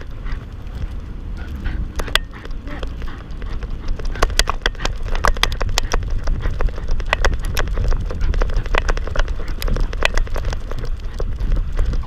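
Irregular sharp clicks and clinks from a dog's harness and metal leash clip as the dog walks, heard close up through a camera mounted on the harness, over a steady low rumble of wind and movement on the microphone.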